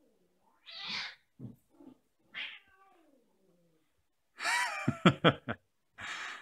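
Cats fighting: drawn-out yowls that slide down in pitch, then a louder, harsher screech about four and a half seconds in.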